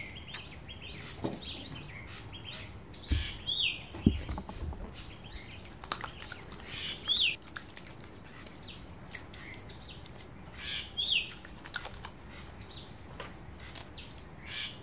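A bird calling in short, falling chirps about every four seconds. Under it are faint wet rubbing sounds from soapy hands and a couple of soft low thumps about three and four seconds in.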